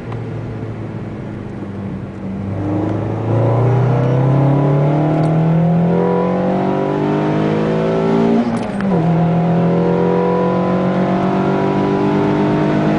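Renault Clio RS engine through a Prowler aftermarket exhaust, heard from inside the car on the move. It first holds a steady cruise, then accelerates with the revs climbing and getting louder for several seconds. About eight and a half seconds in, a gear change drops the revs, and they climb again.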